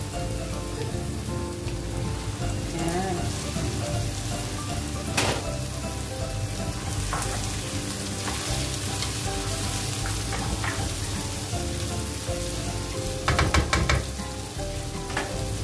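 Squid frying in hot oil with sautéed tomato, onion, garlic and ginger in a non-stick pan: a steady sizzle, stirred with a spatula. There is a knock about five seconds in and a quick run of spatula knocks against the pan near the end.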